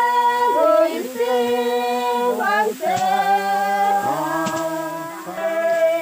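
Several voices singing together unaccompanied, a Zeme rice-harvest work song: long held notes in short phrases that slide from one pitch to the next, with brief breaths between phrases.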